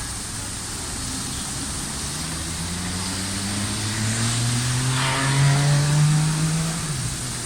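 A motor vehicle's engine accelerating: its pitch climbs steadily for several seconds and grows louder, then drops abruptly near the end, as at a gear change or when the driver lifts off.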